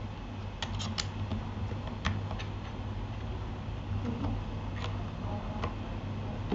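A few scattered, irregular keystrokes on a Keychron K8 keyboard fitted with Gateron Aliaz silent switches, each a short soft click, over a steady low hum.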